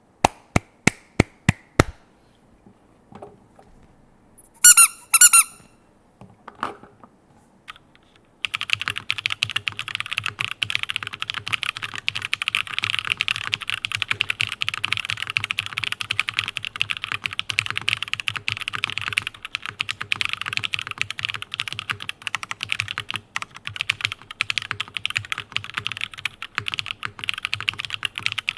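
Mechanical keyboard with Cherry MX Blossom switches, GMK keycaps and a top-mounted aluminium plate: several single keystrokes at the start, then fast continuous typing from a third of the way in. A short high squeak comes about five seconds in.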